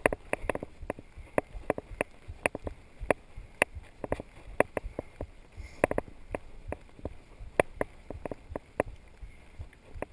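Mountain bike clattering and rattling over a rough dirt trail: irregular sharp knocks, several a second, as the wheels hit bumps and roots.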